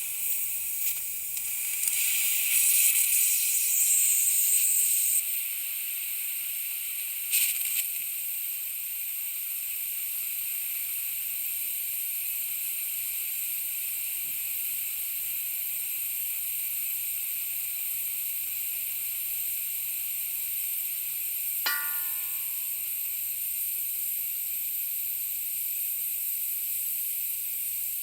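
Compressed air slowly leaking from an air tank: a steady high hiss, stronger for the first few seconds and in one brief spurt about seven seconds in, then even. A short squeak near the end.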